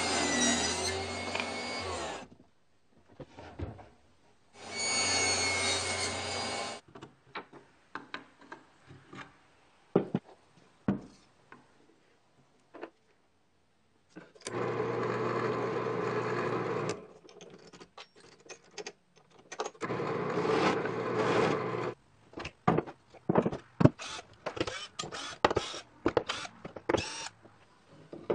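Workshop sounds: a power tool runs in four bursts of about two seconds each, with scattered knocks and clicks of wood and clamps being handled between them. Near the end a cordless drill runs in short spurts, driving screws into a plywood wall.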